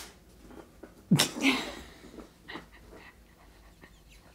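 A person's short, breathy burst of laughter about a second in.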